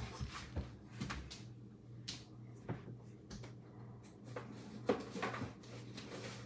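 Scattered light clicks and knocks from objects being handled and moved on a desk, over a steady low hum.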